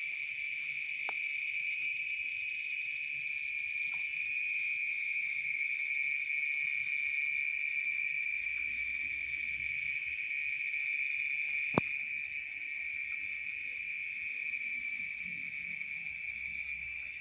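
Night insects shrilling in a steady, unbroken chorus, one high continuous tone with a finely pulsing, even higher one over it. A single sharp click about twelve seconds in.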